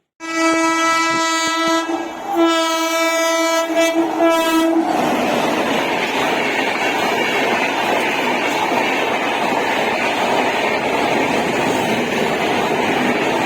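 A WAP-4 electric locomotive's horn sounding two long blasts of about two seconds each, followed by the steady rumble and clatter of the express train running on the rails.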